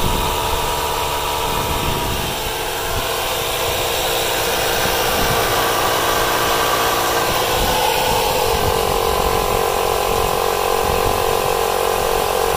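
Several cordless tire inflators (DeWalt 20V, Ryobi 18V and Milwaukee M12) running together while pumping up tires: a steady mechanical drone with several pump tones layered over one another. The mix of tones shifts about two seconds in and again about eight seconds in.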